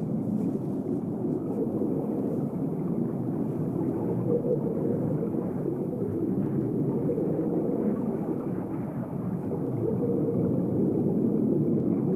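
Muffled underwater ambience: a steady low rumble of moving water with no distinct events.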